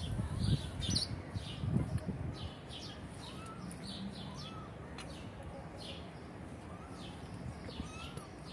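Small birds chirping repeatedly, short high chirps about twice a second, with a few fainter arching calls. Low rustling thumps in the first two seconds.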